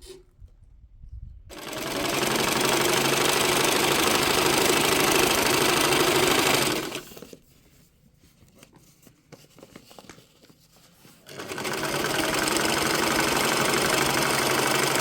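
An old sewing machine running at speed in two long stretches of stitching, each about five seconds, with a pause of about four seconds between them.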